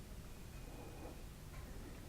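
Quiet workshop room tone: a faint steady low hum, with a faint short high tone about half a second in.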